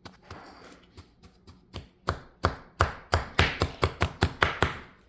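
A quick run of sharp taps, about five a second, starting about two seconds in after faint rustling, as the kinetic sand is handled.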